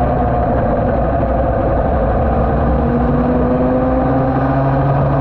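Yamaha TD1B two-stroke twin road-racing motorcycle engine running at speed on track, heard through an onboard camera with wind rush. The engine note eases slightly, then climbs gently from about two seconds in.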